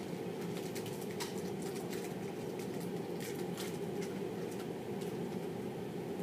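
Steady low room hum with scattered faint crackles and clicks, typical of a biscuit-bar wrapper being handled and opened.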